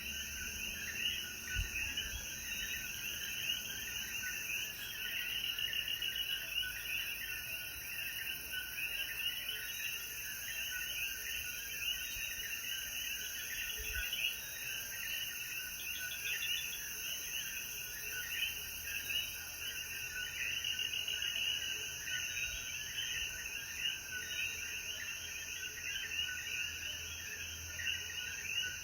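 Dense chorus of many coquí frogs calling after rain, countless short overlapping calls repeating without pause, over a steady high hiss.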